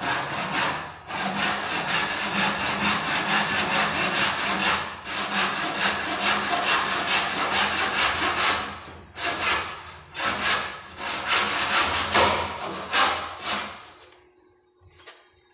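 Hand wood saw cutting back and forth through the butted joint of a wooden handrail, run along the seam so the two pieces close up flush with no gap. Fast, continuous strokes for about nine seconds, then a few separate strokes that stop shortly before the end.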